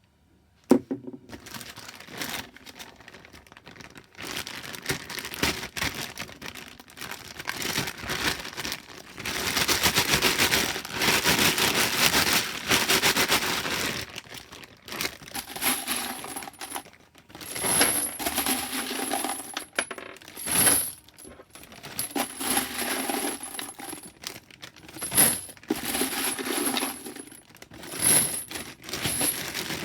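Fired 9mm brass cases clinking and rattling against each other in a dense metallic jingle, heard while cases are worked through a bulge-buster resizing die. From about halfway on, the rattles come in repeated spells every couple of seconds, each with a bright, high ring.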